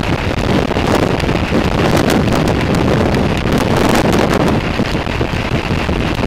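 Strong wind buffeting the microphone of a camera on a motorcycle riding at motorway speed, a loud, rough, steady rush.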